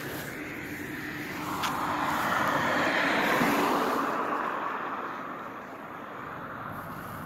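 A vehicle passing by: a rushing noise that builds over a couple of seconds, peaks near the middle and fades away.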